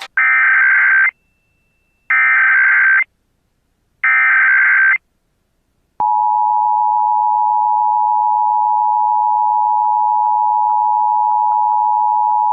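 Emergency Alert System broadcast tones: three one-second bursts of the screeching digital SAME header, encoding a Civil Emergency Message, with a second's pause between each. About six seconds in, the steady two-tone EAS attention signal begins and holds.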